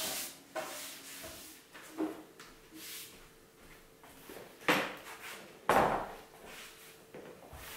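Furniture being handled: a few separate knocks and short scrapes as a metal-legged dining chair is moved at a wooden table. The loudest comes about six seconds in.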